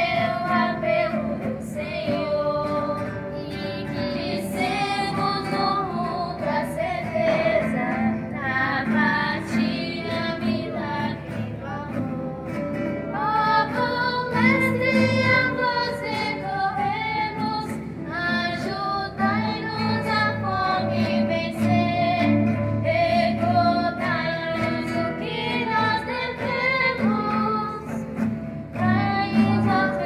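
Girls' voices singing a song together, accompanied by strummed acoustic guitars.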